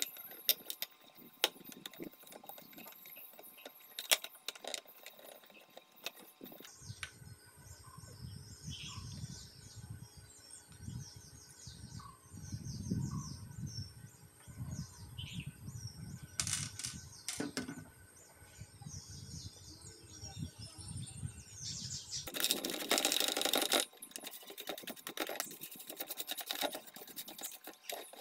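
Hands handling the parts of an opened electronic scale: scattered clicks and knocks as circuit boards and ribbon cables are moved in the plastic housing. A burst of rustling comes about 22 seconds in, then quick rubbing and clicking as the inside is wiped with a tissue. Faint short chirps sound in the background.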